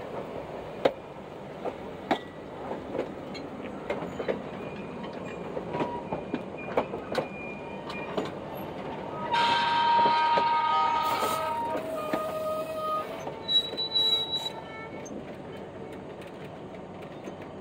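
Railroad car wheels rolling over jointed track with irregular clicks. About halfway through, the wheels squeal for a few seconds with high, shifting tones; this is the loudest part.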